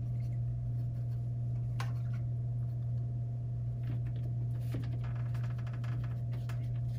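Steady low hum of room noise, with a few faint taps and clicks as a paintbrush, a painted rock and a plastic cup are handled on the table.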